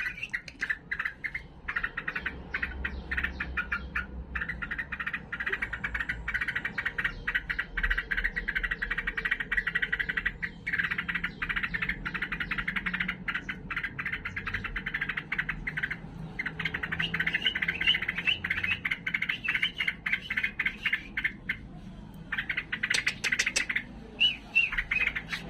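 Yellow-vented bulbul (trucukan) chattering and calling rapidly, almost without pause, in an agitated burst of song, with a run of short bubbly warbled notes around the middle.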